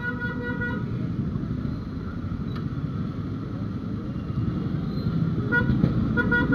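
Vehicle horn honking in a quick run of short beeps, once at the start and again near the end, over steady street traffic noise.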